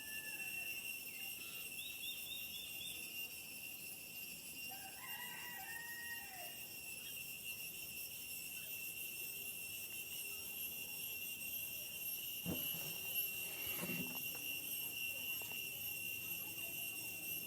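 Outdoor nature ambience: a steady high-pitched insect drone of several tones, with a rooster crowing briefly about five seconds in.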